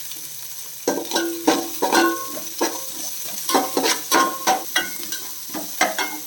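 Background music of quick plucked banjo-like string notes, over onions and garlic frying and sizzling in oil in a pan.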